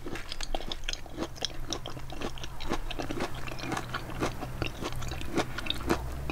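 A person chewing lightly cooked fresh broccoli that still has some crunch, a dense irregular run of small crunching clicks.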